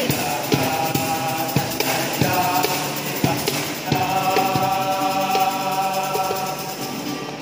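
A small male choir singing a Christmas carol with acoustic guitar accompaniment, holding long notes, over a steady rhythm of sharp taps.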